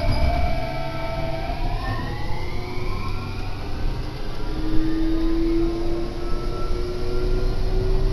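Kintetsu Osaka Line electric train heard from inside the car: steady running rumble with the electric motors' whine gliding in pitch, one tone rising slowly in the second half as the train gathers speed.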